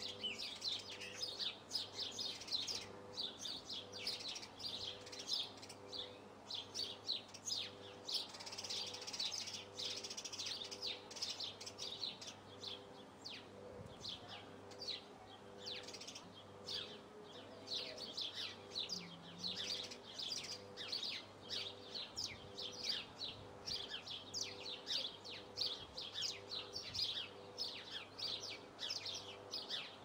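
Small songbirds chirping and twittering continuously, quick high chirps several a second with no pause.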